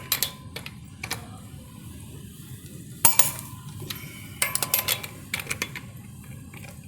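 Sharp metallic clicks and clinks from a Matco click-type preset torque wrench, set to 100 foot-pounds, being ratcheted and clicking off on a fastener. The clicks come in irregular groups, with a quick run of them between about four and a half and five and a half seconds in.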